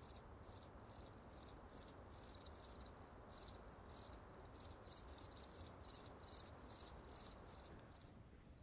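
Crickets chirping faintly, a few short pulsed chirps a second over a low background hiss; the chirping stops near the end.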